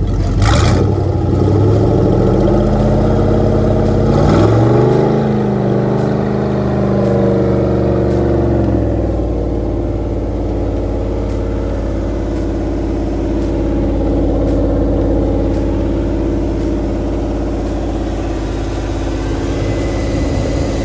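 Freshly rebuilt Chrysler Marine 318 V8, a 1987 truck long block converted to opposite rotation, running on a test stand. It is revved up twice in the first several seconds, its pitch climbing each time, then drops back to a steady idle.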